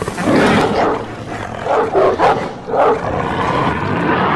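Film sound effect of a gamma-mutated monster dog snarling. There is a loud snarl right at the start, then a string of short snarls about two seconds in.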